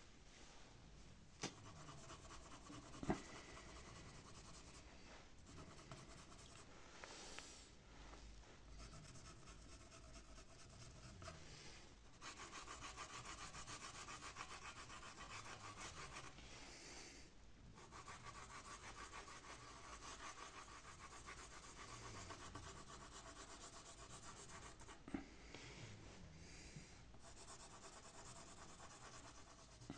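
Pencil shading on paper: faint, steady rubbing of graphite strokes, with a few sharp ticks of the pencil tapping the paper.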